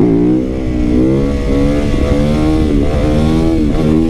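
Yamaha YZ450FX dirt bike's single-cylinder four-stroke engine being ridden, its pitch rising and falling again and again as the throttle is worked: a "brap, brap, brap".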